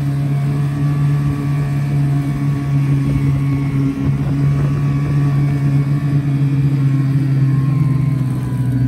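Snowmobile engine running at a steady speed, heard from on board while riding.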